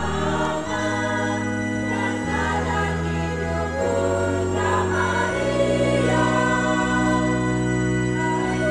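Church choir singing a hymn in several parts over keyboard accompaniment, the low held chords changing every second or two.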